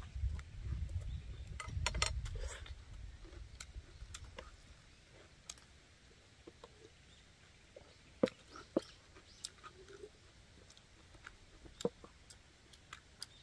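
Eating sounds: people chewing bread and greens. A few sharp clicks, as of glass jars and chopsticks against the wooden table, come in the second half. A low rumble in the first few seconds fades out.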